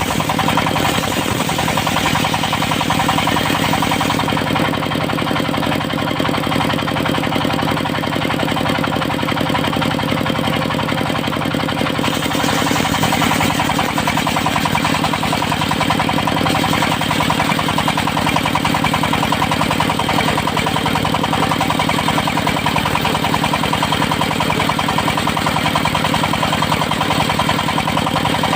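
Engine of a portable circular-saw mill running steadily at a constant speed, with a fast, even firing beat.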